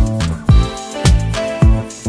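Background music with a steady drum beat about twice a second, over bass and melody notes.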